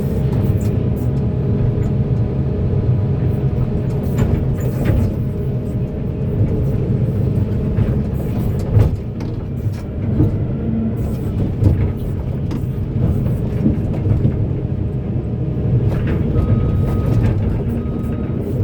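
Heavy mining excavator's diesel engine running steadily under load, with occasional knocks and clunks. Near the end, a short high beep repeats on and off.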